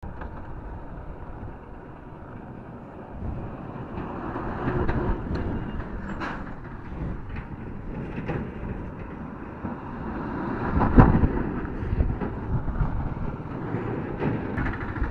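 Road noise of a motorcycle ride in heavy traffic: a steady rumble of engines and tyres with scattered knocks, swelling as heavy vehicles pass and loudest about eleven seconds in.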